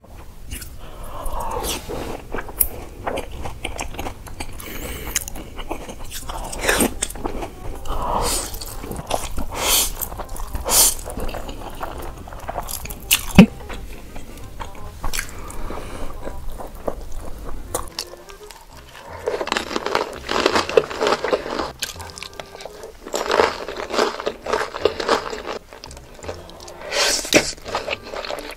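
Close-miked mukbang eating: crunching, biting and chewing of food such as crisp chaat puris and momos, with many sharp crackly bites. Music plays underneath. The sound changes character about 18 seconds in, at a cut to another eater.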